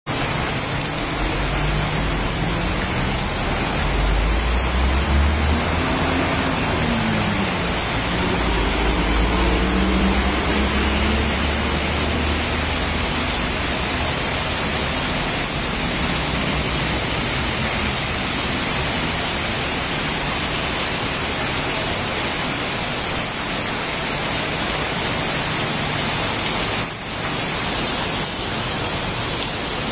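Heavy rain pouring steadily on a city street, a loud even hiss. Between about four and thirteen seconds in, a vehicle's engine rumbles low, its pitch rising and falling as it passes.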